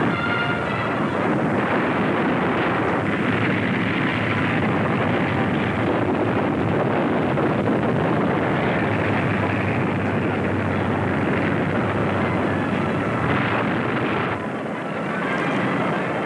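Loud, steady rumble of heavy engines with a dense, even noise, dipping briefly near the end.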